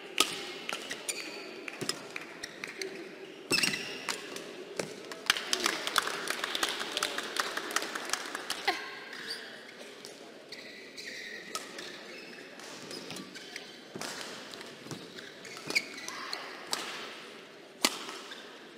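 Badminton rally: rackets striking the shuttlecock, with players' quick footfalls and shoe squeaks on the court mat, the hits and steps coming thick for the first nine seconds or so. After that it goes quieter, with scattered taps and one sharp hit near the end.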